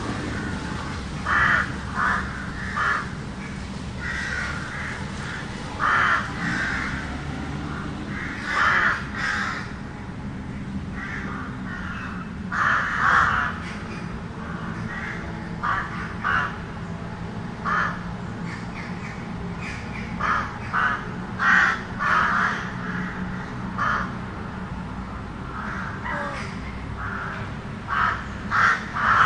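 Crows cawing repeatedly, short calls often in twos and threes, some overlapping, over a steady low hum of distant traffic.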